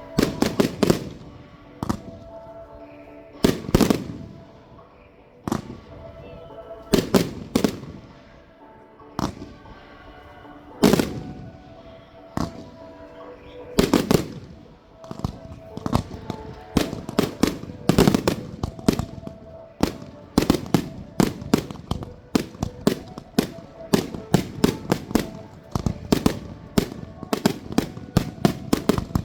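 Fireworks going off in a display: single loud bangs every few seconds, then dense rapid runs of bangs and crackles through the second half.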